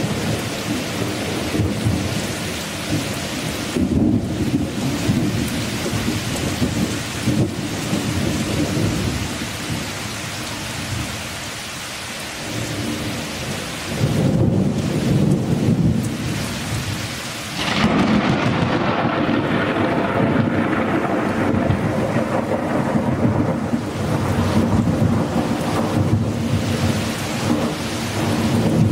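Heavy rain pouring down steadily onto pavement and trees. Deep thunder rumbles swell up about halfway through and again a few seconds later, the second one the loudest.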